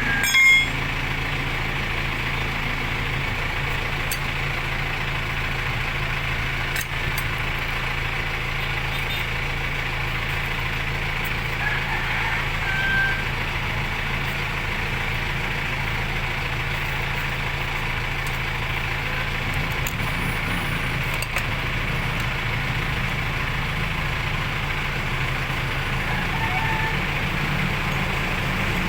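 Steady running of a machine, like an idling engine, with a sharp knock about half a second in.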